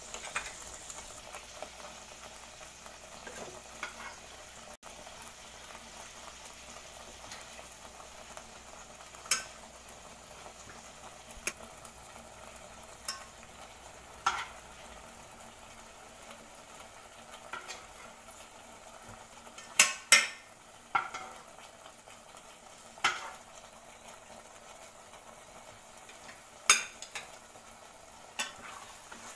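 Butter chicken gravy simmering in an enamel pot with a soft, steady sizzle, broken by scattered sharp knocks and clinks as fried chicken pieces are added and the pot is worked; the loudest is a quick pair of knocks about twenty seconds in.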